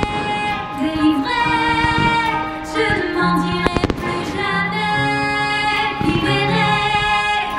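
Fireworks display music, a song with a singing voice, over fireworks bursts popping and crackling at intervals, with a quick cluster of bangs about four seconds in.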